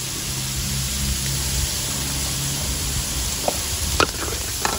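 Meat and chopped chilies sizzling in a large steel wok, a steady hiss, with a metal spatula scraping and clanking against the wok a few times near the end as the food is tossed.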